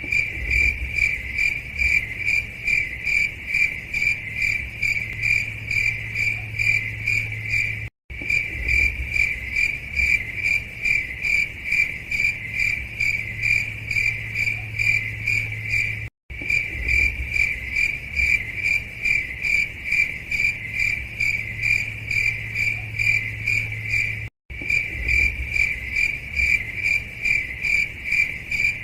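Insect chirping, cricket-like: a steady high-pitched pulsing chirp, several pulses a second, over a low hum. It cuts out for an instant about every eight seconds, as a looped recording does.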